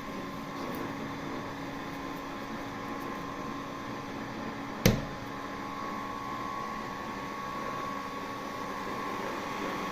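A mini portable refrigerator running with a steady mechanical hum, with a single sharp click about five seconds in.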